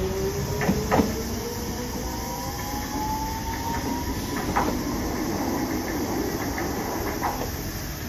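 Hiroden 3900-series tram pulling away and accelerating: its motors give a whine that rises slowly in pitch, with a few sharp wheel clacks over rail joints and a steady running rumble that fades a little as the tram draws away.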